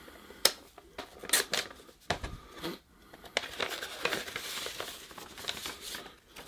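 Paper envelope being cut and torn open by hand: several sharp cutting clicks in the first couple of seconds, then a stretch of paper rustling and tearing as the envelope is pulled open and the letter drawn out.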